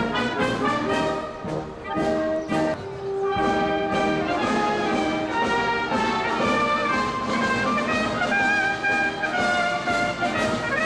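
Brass band playing, several instruments sounding together in held, changing notes.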